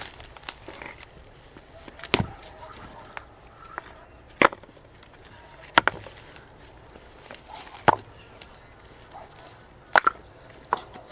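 Sharp wooden knocks, about seven in all, spaced a second or two apart.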